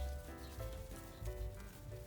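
Background music: held instrumental notes changing every half second or so over a pulsing bass.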